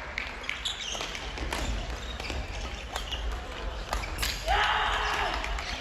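Badminton rally in a large sports hall: irregular sharp knocks of rackets striking the shuttlecock over the hall's background murmur, with a loud shout about four and a half seconds in.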